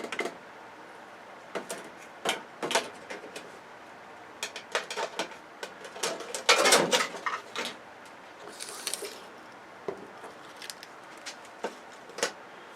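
Irregular clicks, taps and clatter of dismantled TV parts being handled and set down, with a louder burst of clatter about six and a half seconds in.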